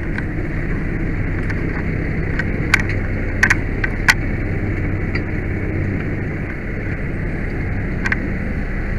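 Fire apparatus engine and road noise heard from inside the cab while under way, a steady low rumble with a few sharp clicks about three to four seconds in.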